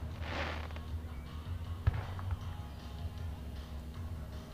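Aerial fireworks: a crackling hiss from a shell burst in the first second, then a single sharp bang about two seconds in, over a steady low rumble.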